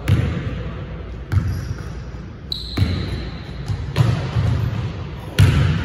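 Basketball bouncing on a hardwood gym floor: about five separate thumps, a second or more apart, echoing in the large hall. A brief high squeak comes near the middle.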